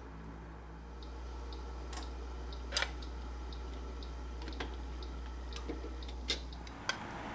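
Light, sharp clicks and taps of chopsticks against a cooking pot as greens are laid into the simmering hotpot, about six in all, the loudest about three seconds in. A steady low hum underlies them and stops shortly before the end.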